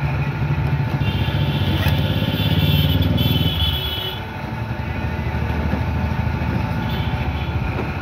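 A steady, low engine-like rumble, louder between about two and four seconds in.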